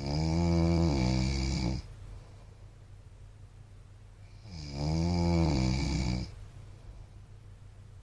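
A man snoring loudly in his sleep: two long, pitched snores about four and a half seconds apart, with quieter breathing between them.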